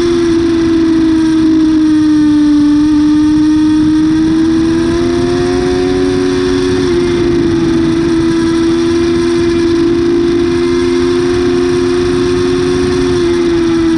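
Yamaha R6's inline-four engine running at high revs in second gear under steady throttle, its pitch dipping and rising gently a few times, with wind rush over the microphone.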